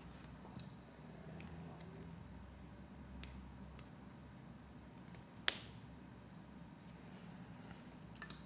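Plastic Lego Technic pieces being handled and fitted together: scattered faint clicks and taps, with one sharp snap about five and a half seconds in and a quick cluster of clicks near the end.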